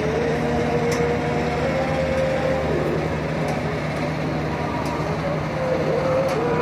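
Passenger train humming steadily, a constant low mechanical drone, with a few faint clicks.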